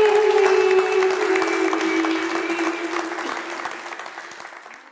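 Audience applause with held music notes beneath, the whole fading out over the last couple of seconds.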